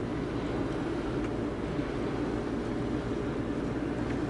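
Steady low rumble of a car driving, with engine and road noise and no clear change.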